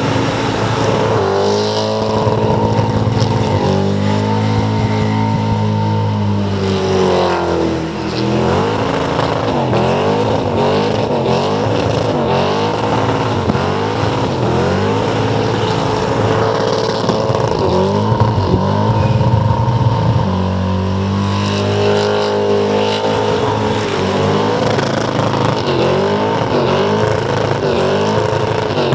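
Holden Commodore burnout car's engine held at high revs while the rear tyres spin and smoke. From about eight seconds in the revs rise and fall roughly once a second, settle steady for a while, then rise and fall again near the end.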